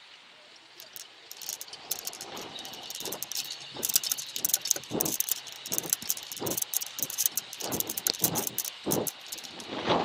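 Rattling and clicking from a BMX ride over a packed-dirt track, with thuds from the bumps and a muffled wind rush, picked up by an action camera's taped-over microphone with wind noise reduction on. It starts quiet and gets denser and louder as the bike picks up speed, busiest from about four seconds in.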